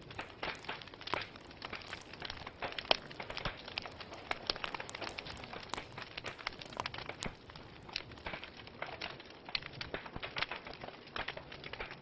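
Log fire crackling: dense, irregular sharp snaps and pops over a steady soft hiss of burning wood.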